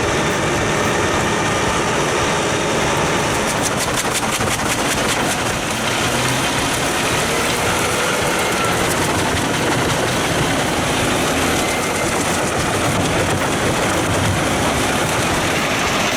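Pezzolato PTH 1400/1000 Allroad self-propelled wood chipper working, its Volvo diesel engine running steadily under a dense mechanical roar, with a brief run of crackles about four seconds in.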